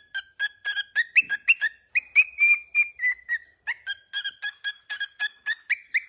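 Grey cockatiel whistling a fast run of short chirpy notes, about four a second, with a longer held note about two seconds in.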